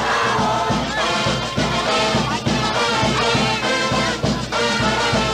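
Carnival tonada: a brass band playing over a steady drum beat, with a chorus of voices singing along.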